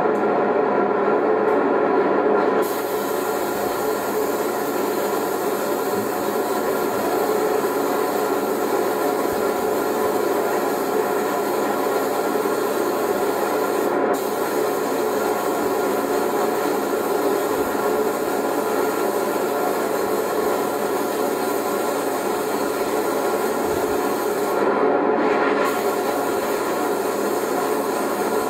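Steady mechanical hum with a hiss from spray-painting equipment as candy paint is sprayed onto a car body, heard through a television's speaker.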